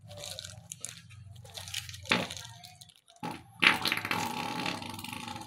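Faint wet squelching of runny white cement squeezed from a plastic piping bag into holes in a wooden window frame, in short irregular squirts.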